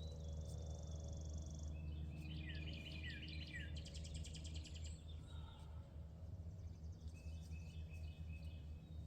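Small birds chirping and trilling in quick repeated phrases, faint over a steady low hum.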